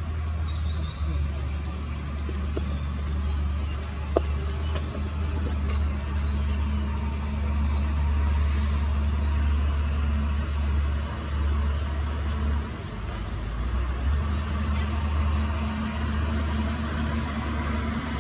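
A steady low rumble of an engine running nearby, with a few faint high chirps and one sharp click about four seconds in.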